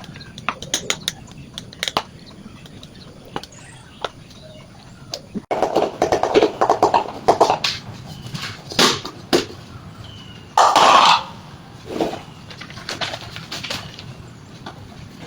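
Scattered clicks and knocks, then about six seconds in a couple of seconds of rapid rhythmic scraping strokes, with a short rush of noise near eleven seconds.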